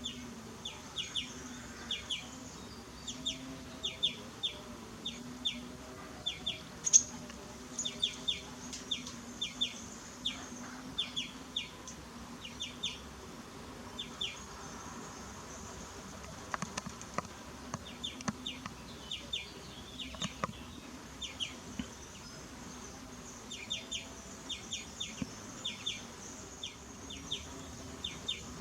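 Birds chirping: short, sharp chirps repeated in quick runs, with a fainter continuous high buzz behind them.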